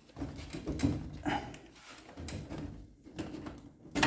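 Irregular clunks, rattles and scrapes of metal parts and tools being handled, with a sharp, loud knock right at the end.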